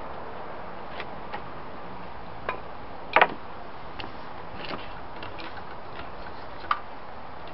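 A few scattered clicks and knocks from a corded power saw being picked up and set down on a timber cabinet, the loudest a double knock about three seconds in, over a steady faint hiss.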